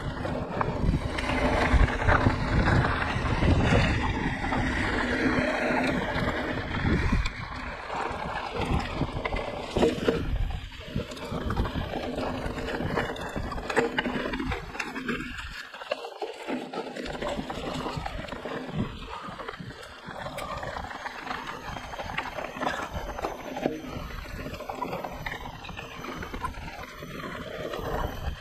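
Mountain bike riding a rough dirt trail: tyre and wind noise with frequent knocks and rattles from the bike and its loosely strapped camera over the bumps, louder and rougher for the first several seconds, then easing.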